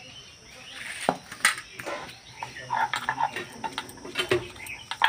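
Steel plate clinking and a stone pestle knocking on a flat stone grinding slab (shil-nora) as fried leaves are tipped onto it, a string of sharp knocks and clatters starting about a second in.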